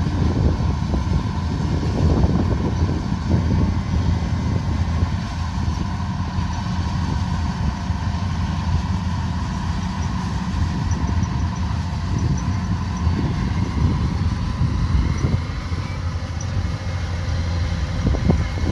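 Kubota combine harvester running steadily, with a continuous low engine and machinery drone and faint steady whining tones above it.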